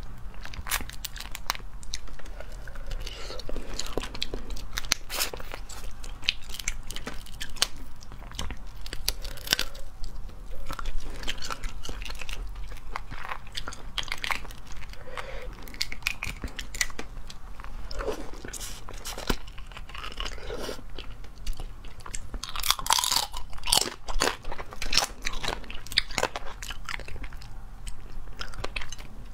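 Boiled crayfish shells being cracked and peeled by hand close to the microphone, with frequent sharp cracks and snaps, mixed with chewing as the meat is eaten. The cracking is thickest about three-quarters of the way through.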